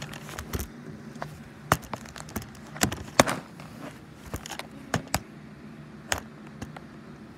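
Handling noise from a phone being moved about: about a dozen irregular clicks and knocks, over a low steady hum.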